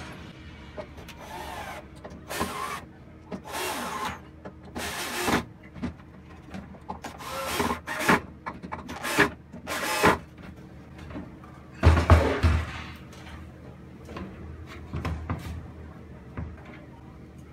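A 14.4 V cordless drill-driver driving screws into a plywood panel in a series of short bursts, with wooden parts knocking as they are handled; one knock about two-thirds of the way through is louder than the rest.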